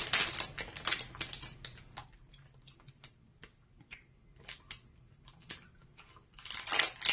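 Plastic candy bag crinkling and crackling as it is handled, dense at first, thinning to scattered crackles, then picking up again near the end.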